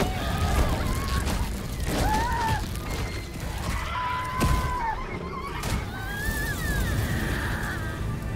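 Film sound design of a violent creature attack: a woman's screams rise and fall several times over low rumbling and heavy impacts, with one sharp hit about four and a half seconds in.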